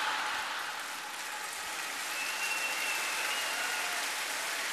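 Large audience applauding, a steady wash of clapping from a big crowd.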